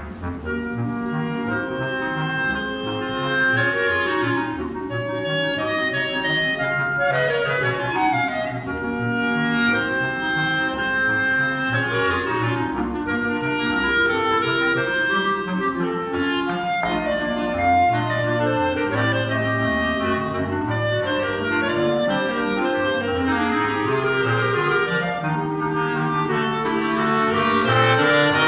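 Clarinet quintet of four clarinets and a bass clarinet playing an arrangement of a Mexican song, with quick runs in the upper parts over bass clarinet notes.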